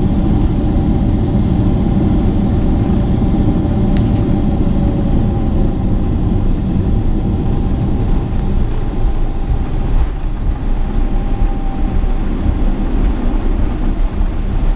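Boeing 777's GE90 turbofan engines at taxi idle, heard from inside the cabin: a steady rumble with two faint whining tones that sink slightly and fade away.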